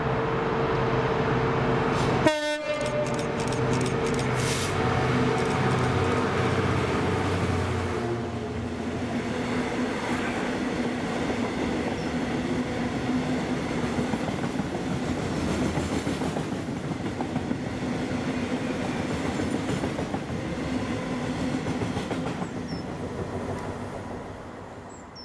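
A Class 66 diesel locomotive's two-stroke EMD engine running as it approaches and passes at speed, with a sudden sharp noise about two seconds in. A long train of loaded flat wagons follows, its wheels rumbling and clattering on the rails, and the sound fades away near the end.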